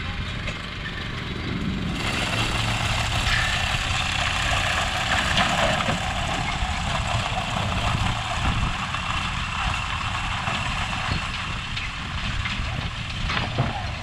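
A farm engine running steadily. About two seconds in, a loud rushing hiss starts suddenly and carries on.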